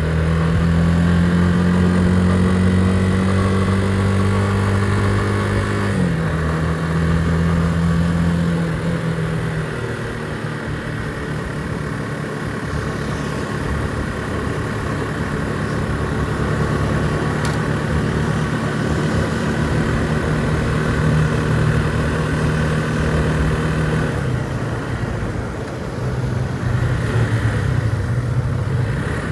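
Vehicle engine running while being driven: a steady engine note that drops in pitch about six seconds in and changes again a little before the end, over a steady rush of road noise.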